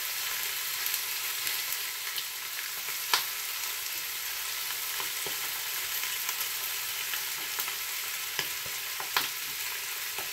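Chicken thighs frying skin-side down in an unoiled frying pan, sizzling steadily as their fat renders out. A few sharp clicks come about three seconds in and twice near the end.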